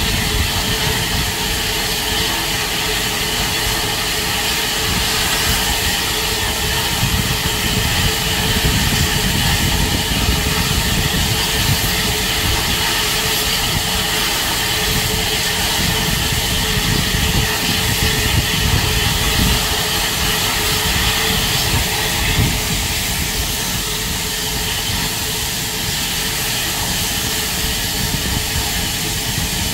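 Steam locomotive 34067 'Tangmere', a Bulleid Battle of Britain class light Pacific, letting off a steady hiss of steam over an uneven low rumble, without exhaust beats.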